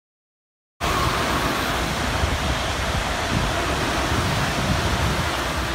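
Thameslink electric train running along the track, a steady rolling rumble and hiss that starts abruptly about a second in, mixed with heavy wind buffeting the phone microphone.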